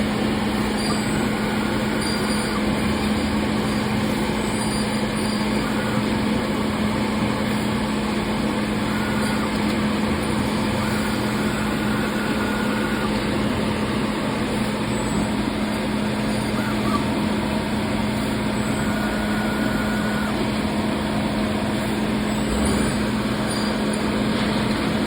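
Thermwood CNC router running steadily: a constant machine noise with a steady hum, and brief higher whines that come and go now and then.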